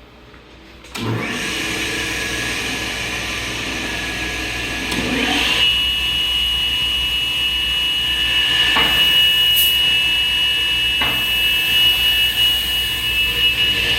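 CTD CDM-200 double-end trim and miter saw starting up: its electric motor and 10-inch blade come on suddenly about a second in. About five seconds in the sound grows louder and settles into a steady high whine.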